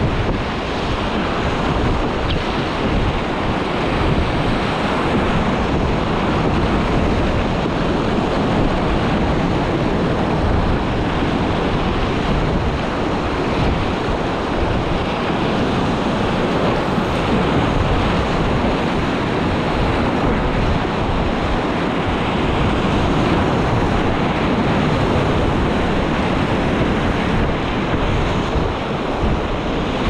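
Rushing river whitewater splashing steadily around a wildwater racing kayak running down rapids, with wind rumbling on the microphone.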